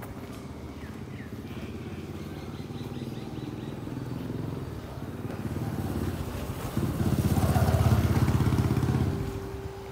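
Motorcycle engine running as the bike approaches, loudest about seven to nine seconds in as it passes close by, then fading as it moves away.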